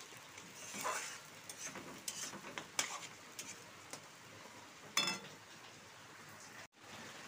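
Spice paste of onion, ginger, garlic and chilli sizzling in hot oil in a metal kadai while a spatula stirs and scrapes through it. Scattered short scrapes, with one ringing clink of the spatula against the pan about five seconds in; the sound drops out for an instant near the end.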